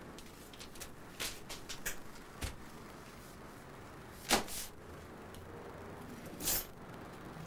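Kitchen drawers and cupboard doors being opened and shut and things handled on the counter: a string of small clicks and knocks, with the loudest knock about four seconds in and another about six and a half seconds in.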